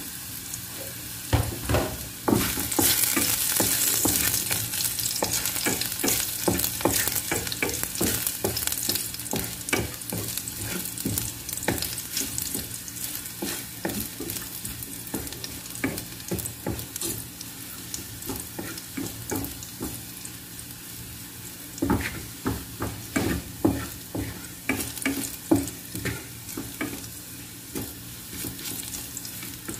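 Chopped garlic sizzling in hot oil in a pan, stirred and scraped with a wooden spatula, with frequent knocks of the spatula against the pan. The sizzle is loudest a few seconds in and then settles lower.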